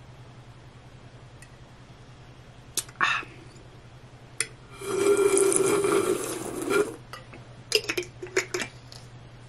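A person drinking from a bottle: a swallow, then a loud breathy sound lasting about two seconds, then a run of quick small clicks and clinks as the bottle cap is screwed back on.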